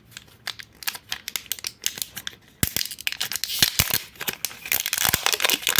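Toy packaging being cut open with small scissors and torn, with crinkling: scattered snips and clicks at first, then a denser, louder run of tearing and crinkling from about halfway through.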